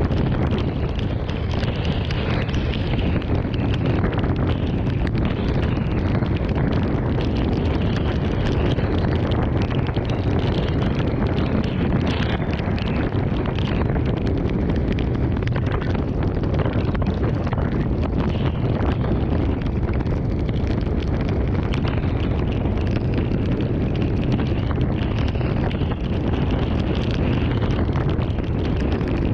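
Strong thunderstorm wind rushing steadily and buffeting the microphone.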